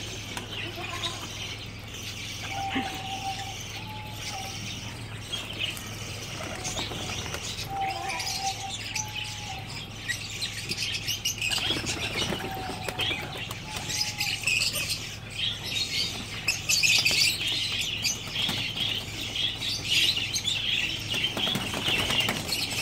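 Wings of white fantail pigeons flapping as the birds flutter up and land on the feeder's hands, with bird chirps mixed in. The flapping becomes busier about halfway through.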